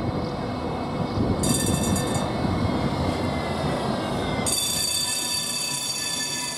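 Škoda 26T low-floor tram rolling past on street track with a steady rumble, and two spells of high-pitched squealing: a short one about a second and a half in and a longer one starting about four and a half seconds in.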